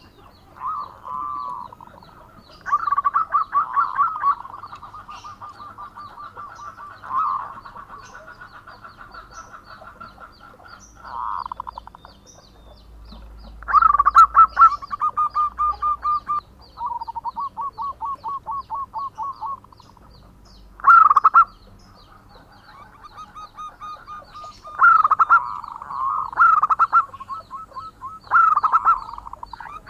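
Zebra dove (perkutut) cooing: repeated phrases of a few loud accented notes, each trailing into a long rolling trill of fast, even pulses, with short pauses between phrases.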